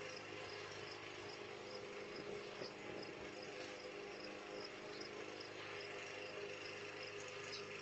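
Insects chirping, in a regular run of short chirps about two a second, faint over the hiss and low hum of a Ring doorbell camera's microphone.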